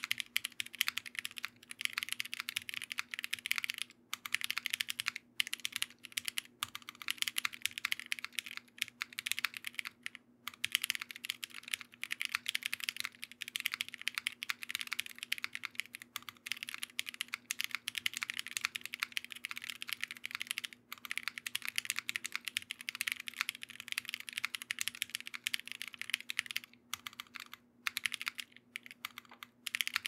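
Continuous fast typing on a Ginkgo65 65% mechanical keyboard with Hades linear switches, GMK keycaps, a polycarbonate plate, silicone gaskets and case foam: a dense stream of key strikes broken by a few brief pauses.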